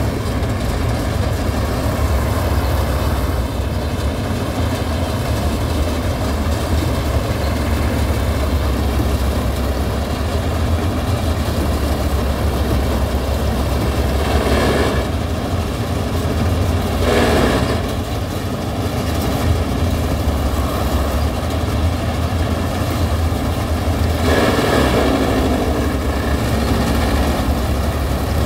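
Combine harvester's diesel engine and threshing machinery running steadily as it works through muddy paddy stubble, a deep continuous drone with a whirring mechanical hum. The noise swells for a second or two three times, about halfway through and near the end.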